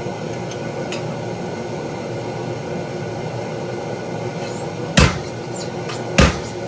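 Two heavy metal-on-metal blows from a treadle hammer, about a second apart near the end, over a steady droning shop background.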